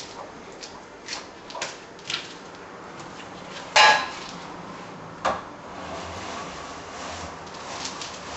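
Wooden venetian blind being let down on its cord: light clicks and knocks of the slats and head-rail parts, two sharp wooden clatters about four and five seconds in, then a softer rattling of the slats as they settle.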